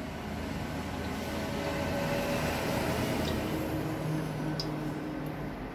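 Cooking oil poured from a plastic bottle into an empty stainless-steel karahi, a steady pouring stream into the metal pan.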